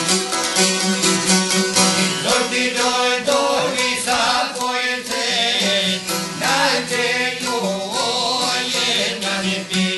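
Çifteli, the Albanian two-stringed long-necked lutes, strummed in a fast, steady folk rhythm. From about two seconds in until near the end, a voice sings a long, wavering line over them.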